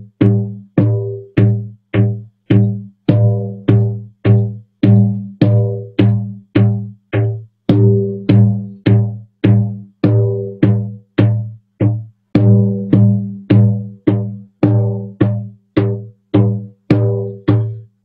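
Large hand-held hide frame drum struck with a padded beater in a steady beat, about two strokes a second; each stroke is a deep boom that rings briefly and dies away before the next.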